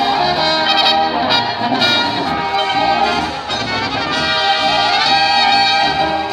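Czech brass band (dechová hudba) playing a dance tune live, trumpets over a steady beat of bass notes.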